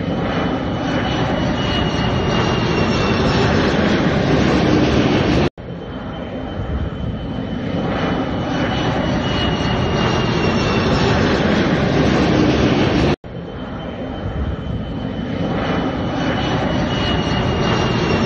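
Jet noise from a twin-engine Embraer airliner's turbofan engines as it flies low overhead, a steady dense roar with a faint falling whine. The sound cuts out abruptly twice, about seven to eight seconds apart, and builds louder again after each break.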